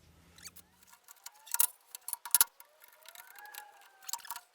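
A few sharp, separate metallic clicks and taps from small hardware and aluminium fence parts being handled and fitted together.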